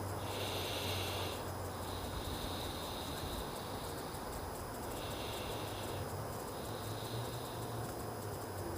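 Insects buzzing in high pulses about a second long, four times, over a steady low hum.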